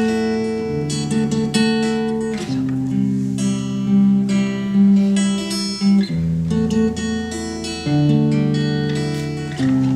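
Acoustic guitar playing the instrumental introduction of a slow ballad, its chords changing every couple of seconds.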